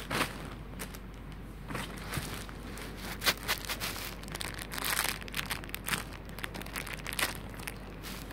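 Thin clear plastic bag crinkling and rustling as it is handled, in irregular bursts of crackle.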